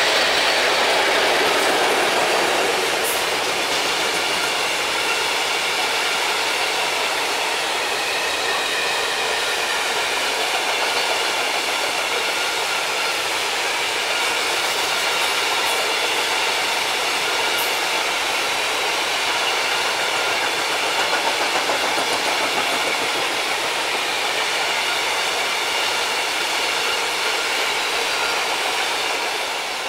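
A long rake of open coal wagons rolling past on jointed track: a steady rumble of wheels on rails with clickety-clack, and faint high ringing tones from the wheels.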